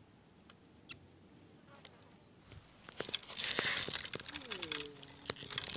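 Light clicks of a spinning fishing reel being handled. About three seconds in comes a loud rushing swish of a cast, with line running off the reel. A few short falling tones follow near the end.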